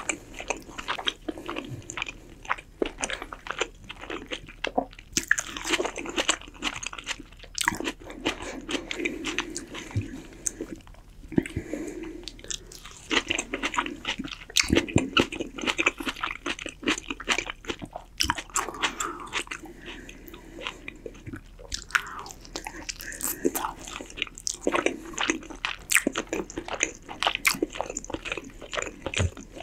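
A person chewing roast chicken close to the microphone: wet mouth sounds with many sharp clicks, continuing without a break.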